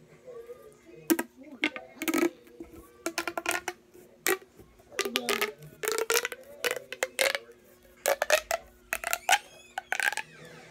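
Plastic pop tube fidget toy being stretched and squashed, giving a run of sharp, irregular pops and clicks in quick clusters.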